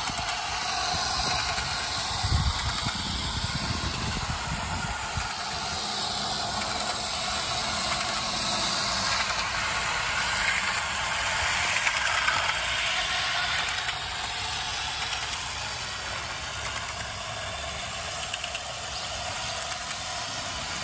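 O gauge model train running along elevated garden track: a steady mechanical whirring and clatter from its motor and wheels on the rails, with a brief low rumble about two seconds in.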